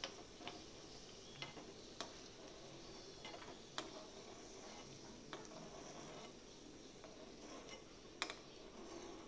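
Steel spoon clicking and scraping against a small nonstick kadai and a glass plate as fried cashews are scooped out of hot ghee: about eight sharp, irregular taps, the loudest near the end, over a faint, steady sizzle of the ghee.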